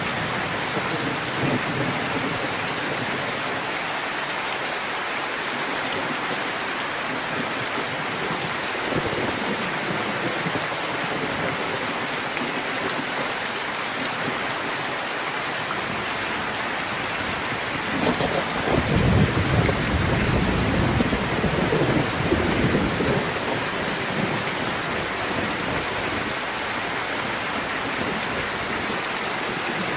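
Steady rain falling, with a low roll of thunder rumbling for several seconds about two-thirds of the way through.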